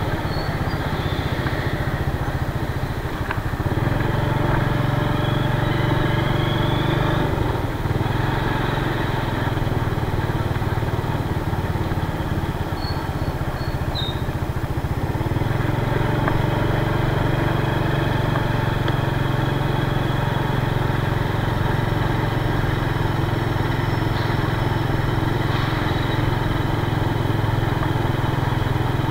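Small motor scooter engine running steadily while under way, with a low hum that grows louder at about four seconds in and again about halfway through as the throttle is opened.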